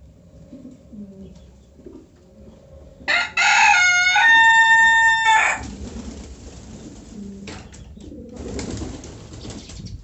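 A rooster crows once, loud, about three seconds in, for a little over two seconds, rising in steps to a long held final note. Pigeons coo low and softly before and after the crow.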